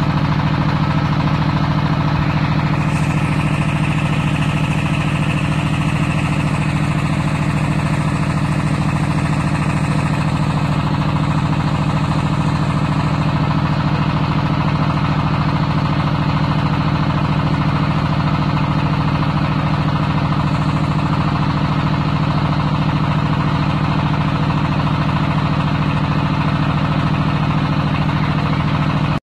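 Tractor engine running steadily under load, powering a tractor-mounted hydraulic well drilling rig as it drills. A faint high whine joins about three seconds in and fades after several seconds.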